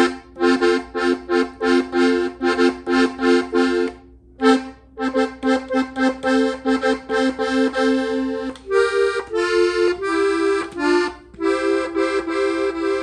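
Hohner Panther three-row diatonic button accordion, tuned in F, playing a fast melody of short, quickly repeated notes sounded two at a time on the treble buttons. There is a brief break about four seconds in, and the notes change near the end.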